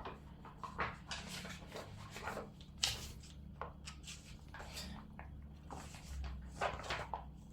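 Soft rustling with scattered small clicks and taps, the sound of small objects being handled.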